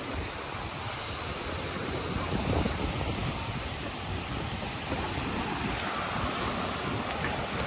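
Wind buffeting the microphone over a steady rushing noise, unbroken throughout.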